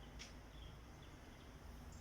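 Near silence: a faint low background hum with a few faint, short, high bird chirps.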